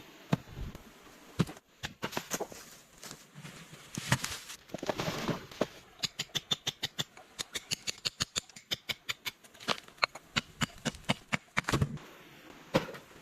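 A series of sharp knocks: a few scattered strikes, a short scraping stretch around four to five seconds in, then a fast, even run of about five knocks a second from around six seconds in until nearly twelve seconds.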